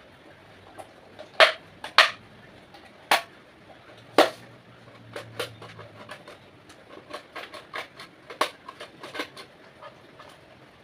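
Irregular sharp clicks and knocks of hard objects being handled, the loudest about one and a half, two, three and four seconds in, then a run of lighter clicks.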